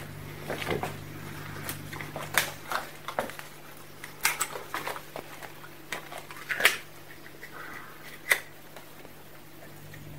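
Scattered clicks and knocks of kitchen handling as a plastic milk bottle and a blender beaker are picked up and set down on a steel worktop, over a steady low hum.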